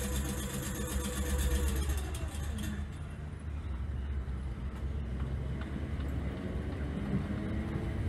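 South Western Railway suburban electric multiple unit pulling away from the platform: a low rumble of wheels on rail with a traction-motor whine whose tones fall about two seconds in and start rising again near the end as it picks up speed.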